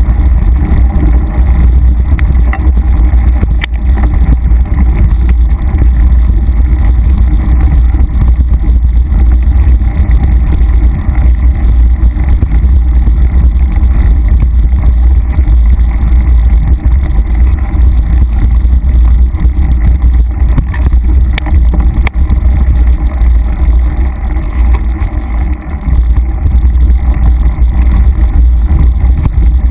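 Loud, steady wind buffeting on a bike-mounted camera's microphone over the rumble and rattle of a mountain bike riding fast down a dirt singletrack, with occasional sharp clicks from the bike jolting over roots and stones.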